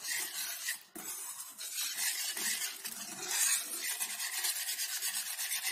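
Wire whisk stirring and scraping milk powder into milk in a nonstick frying pan: a steady run of quick scratchy rubbing strokes, with a brief pause about a second in.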